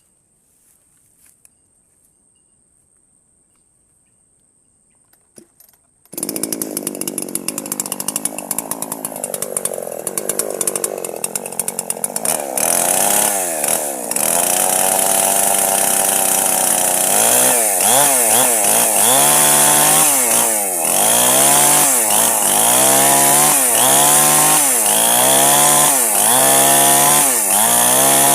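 Near silence for about six seconds, then a two-stroke chainsaw suddenly starts up at high speed. From about halfway its engine pitch rises and falls repeatedly, a little more than once a second, as it cuts lengthwise through wood.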